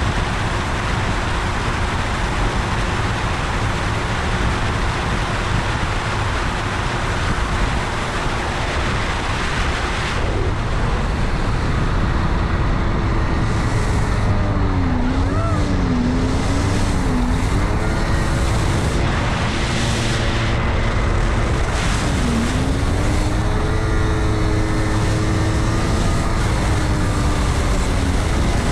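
Yamaha GP1200 jet ski's two-stroke three-cylinder engine running at speed under heavy wind and water rush. About halfway through the engine pitch starts to dip and rise several times as the throttle is eased off and opened again.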